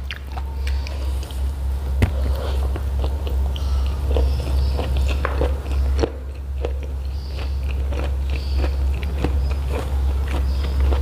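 Close-miked chewing and wet mouth clicks of a mouthful of rice and jengkol being eaten, with many short crackles, over a steady low hum.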